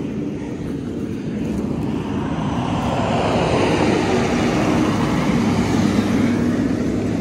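Utility service truck towing a compact excavator on a flatbed trailer, its engine running with tyre noise on the dirt road as it comes up and passes, growing louder over the first few seconds.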